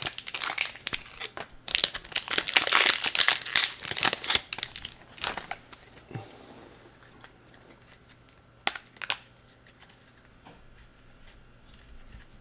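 Crinkling and tearing of a baseball card pack wrapper as it is ripped open and crumpled. The sound is dense for the first four to five seconds, then dies away to a few light clicks and taps.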